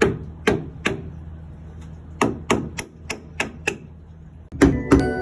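Hammer tapping in two runs: three strikes, a pause of about a second, then six quicker strikes about three a second, over a low steady hum. Music with bell-like notes comes in near the end.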